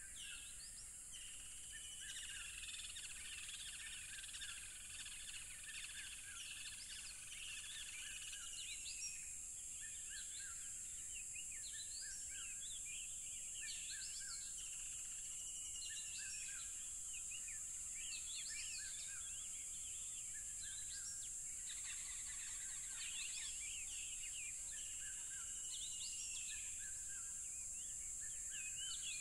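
Steady, high-pitched cricket chorus, with birds calling throughout over it: many short chirps and an arching whistled call that comes back several times.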